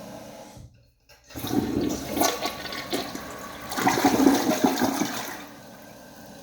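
Toilet flushing: a rush of water starts suddenly about a second and a half in and swells twice. It then falls back to a steady quieter hiss near the end.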